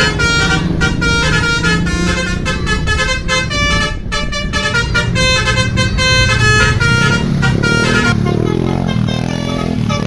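Tour bus's multi-note 'telolet' musical air horn (basuri type) playing a fast tune of short, separate notes, over the bus's engine.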